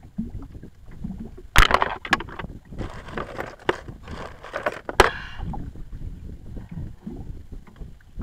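Knocks and rattling against the hull of a small rowboat: a sharp knock about one and a half seconds in and another about five seconds in, with rustling and rattling between them, over a low rumble.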